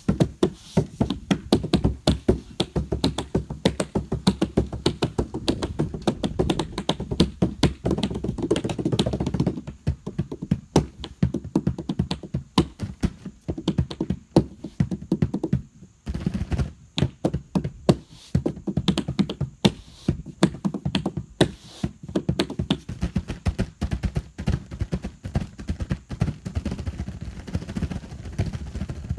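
Hands drumming on a canoe's hull, a fast rhythmic groove of deep thumps and lighter taps, with a brief break about halfway through.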